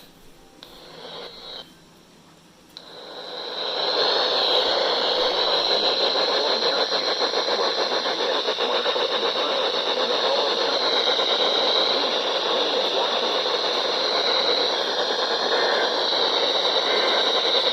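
Radio static: a steady hiss from a receiver on a weak or empty frequency, with a faint wavering whistle, swelling up about three seconds in.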